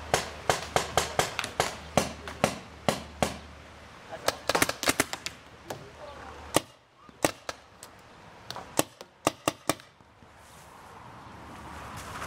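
Paintball marker firing in rapid strings of sharp pops, several shots a second, broken by short pauses; the shooting stops about ten seconds in.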